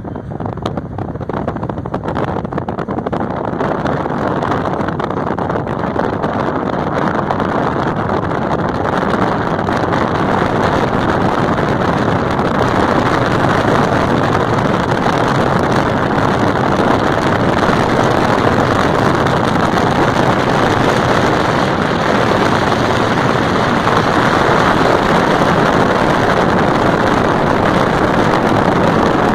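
Steady rush of wind and road noise from a moving car, heard through its open side window. It grows louder over the first several seconds and then holds steady.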